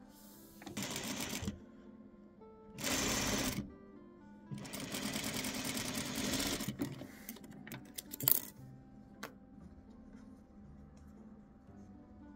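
Electric sewing machine stitching patchwork fabric in three short runs: one about a second in, one around three seconds in, and a longer run of about two seconds in the middle. A sharp click follows a little later.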